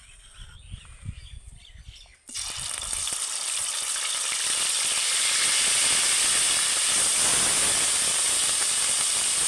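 Ground onion paste sizzling in hot oil in a steel wok. After a few soft knocks, the sizzle starts suddenly a couple of seconds in as the paste hits the oil, swells briefly, then holds steady and loud.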